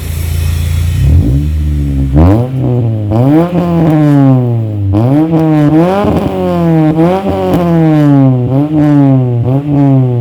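Honda Civic engine through a racing muffler, idling briefly and then revved in repeated quick throttle blips, its pitch rising and falling about once a second.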